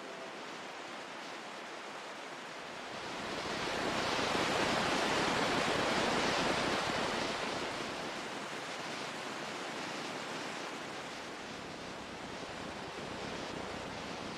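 Ocean surf: a steady rush of water in which a wave swells up about three seconds in, peaks, and washes back down to a lower, even rush.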